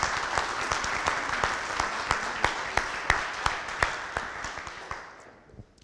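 Audience applauding, a dense patter of hand claps that dies away about five seconds in.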